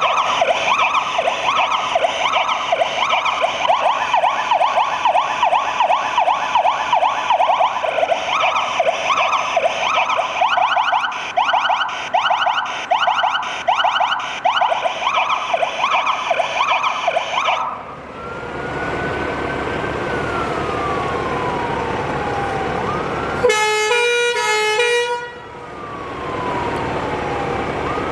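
Fire engine sirens on test. A fast yelp comes first, overlaid with the hiss of a white-noise siren. About 18 seconds in it switches to a slow rising and falling wail, which is cut briefly around 24 seconds by a short burst of rapidly alternating tones before the wail resumes.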